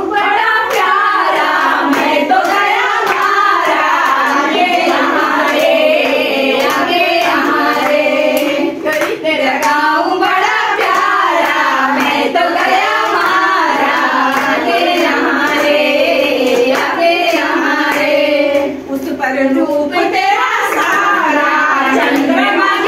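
Women singing a song without instruments, with hand claps keeping time.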